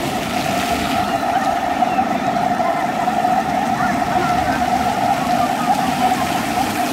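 Ground-jet splash fountain running: many water jets spraying up and falling onto wet paving, a steady rush of water with a steady hum through it. A few faint children's calls sound over it.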